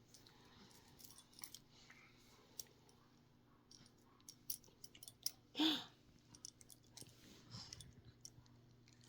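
Faint scattered clicks and small handling noises over a low steady hum, broken about halfway through by one short baby vocal sound whose pitch dips slightly.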